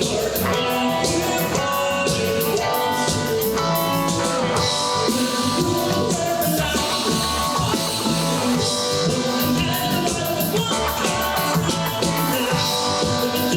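Rock band playing live: guitar over a drum kit with a steady beat.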